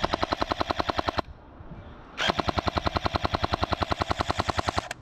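A&K M249 PARA airsoft electric gun firing full-auto, its gearbox cycling at about twelve shots a second. It fires a short burst, pauses for about a second, then fires a longer burst of nearly three seconds.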